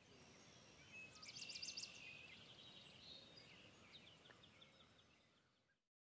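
Faint outdoor ambience with small birds singing in short high trills, fading out near the end.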